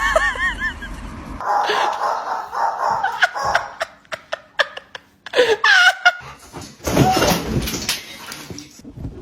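A dog's wavering whines and yowls in short bursts, with human laughter mixed in.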